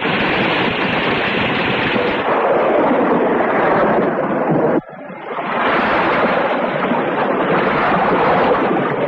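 Sound effect of a heavy rainstorm: a loud, steady rush of rain and wind. It breaks off abruptly about five seconds in, then swells back up.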